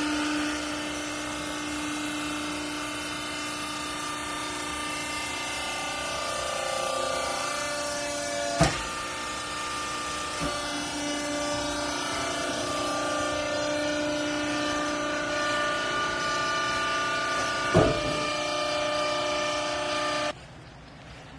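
Hydraulic clothes baler's pump and motor running with a steady whine that shifts a little in pitch as the press works, with two sharp knocks along the way. It cuts off suddenly near the end.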